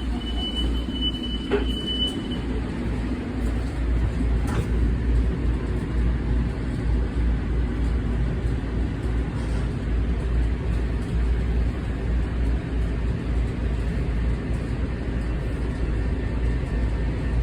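Steady low rumble of a commuter train in motion, heard from inside the passenger car. A high electronic beep tone sounds for the first couple of seconds, with a faint click or two.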